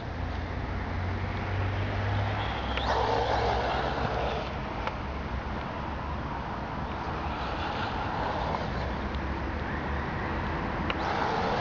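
Brushless 1:8 RC short course truck (Robitronic BR50 with a Neu 1515 1100kv motor) running across grass, its electric motor whining up briefly about three seconds in, over a continuous noisy rush of tyres and open-air noise that swells as it drives.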